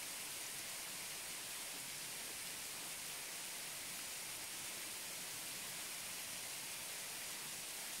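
Waterfall heard close up: falling water making a steady, unbroken hiss, strongest in the high range.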